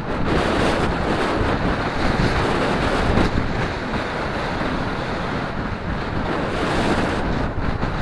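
Wind buffeting the microphone of a cyclist riding into a headwind: a steady rushing noise that rises and falls slightly.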